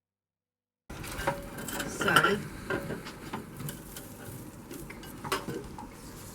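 Scattered light knocks, clicks and clatter of a freshly trimmed wooden piece and hand tools being handled and set down after sawing in a mitre box.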